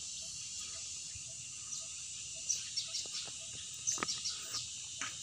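Steady high-pitched drone of insects in the trees, with birds chirping in short calls that grow more frequent from about two seconds in.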